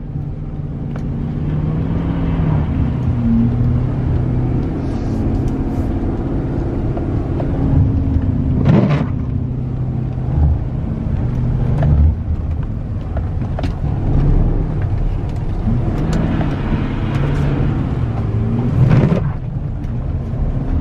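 Car engine running while being driven, its pitch rising and falling several times with the revs.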